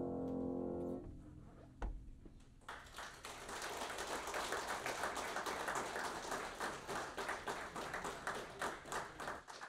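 Upright piano's final notes ring out and die away about a second in. Then the audience applauds, a steady patter of many hands clapping that fades near the end.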